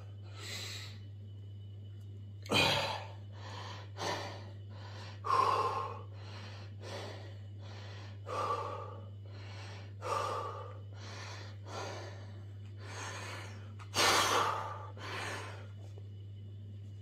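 A man breathing hard in sharp gasps, in and out about every second or so, as he braces and strains to tear a deck of playing cards in half. The loudest breath comes near the end, over a steady low hum.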